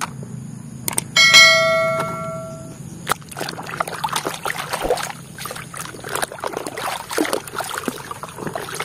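A single bell-like chime rings out about a second in and fades over about a second and a half. Then muddy water sloshes and splashes in a plastic basin as a hand swishes a toy helicopter through it, in irregular strokes.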